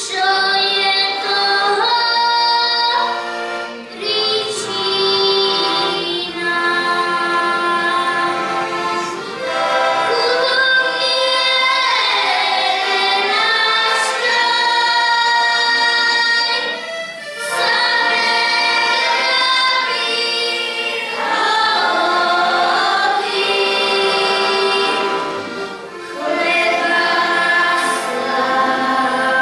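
Children's group singing a folk song together, with accordion accompaniment, in long sung phrases with short breaks between them.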